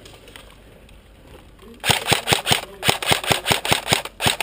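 Airsoft gunfire: after a quiet start, rapid bursts of sharp shots begin about two seconds in, several a second, close and loud.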